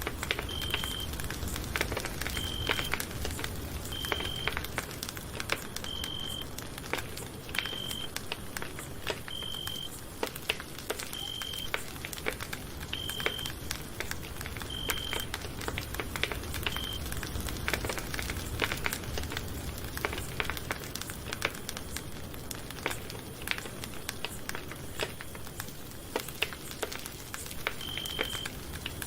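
Campfire crackling: a steady hiss with frequent sharp clicks and snaps. A short high beep repeats about every two seconds through the first half, stops, then sounds once more near the end.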